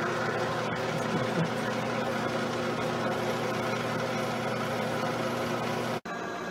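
Milling machine spindle running steadily while drilling bolt holes in an aluminium end cap: a constant motor hum under a hiss of cutting noise. It cuts off suddenly near the end, giving way to a quieter, steady lathe running.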